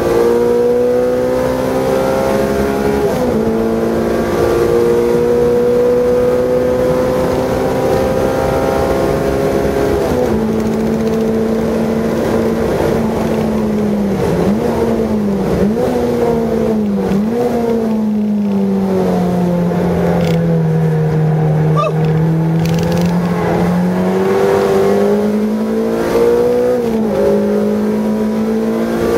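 Car engine heard from inside the cabin, driven hard on a circuit: its pitch climbs and drops abruptly at each gearchange, dips and recovers a few times in quick succession midway, holds lower and steady for several seconds, then climbs again near the end.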